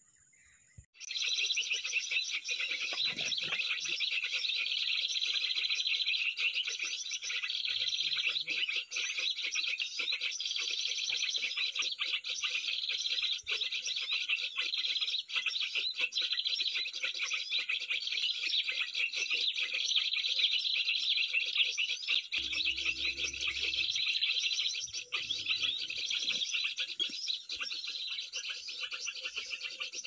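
A dense, unbroken chorus of high-pitched small-bird chirps and calls, starting abruptly about a second in. A short low rumble of handling noise comes about three-quarters of the way through.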